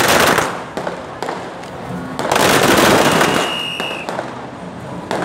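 Lí pào ground firecrackers going off: a burst of hissing, crackling sparks that ends about half a second in, then a second, longer burst about two and a half seconds in.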